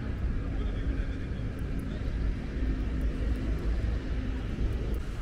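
City street background noise: a steady low rumble of passing traffic.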